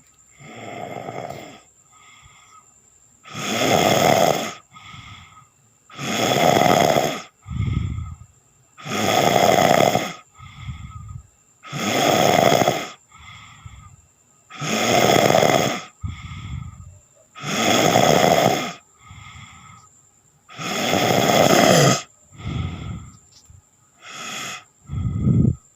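A person snoring in a steady rhythm: seven loud snores, each about a second and a half long and about three seconds apart, with shorter, quieter breaths between them.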